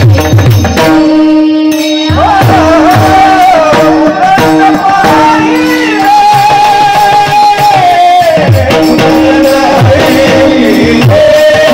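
Marathi devotional song: a melodic vocal line over hand-drum strokes and a steady held note. The drum drops out briefly about a second in, and the voice enters about two seconds in.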